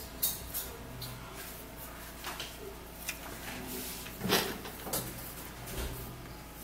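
Soft handling noises from hands rubbing a cream onto the arm: a few light rubs, rustles and knocks, the loudest about four seconds in.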